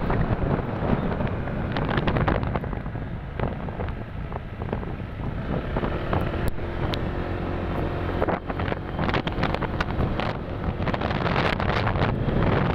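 Wind rushing and buffeting over the microphone of a moving motorcycle, with the engine's low steady hum underneath and scattered short crackles.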